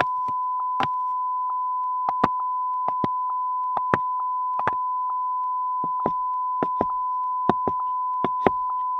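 Wooden geta sandals clacking in footsteps: sharp, irregularly spaced knocks, some in quick pairs. A steady high beep tone runs unbroken beneath them as a watermark over the sample.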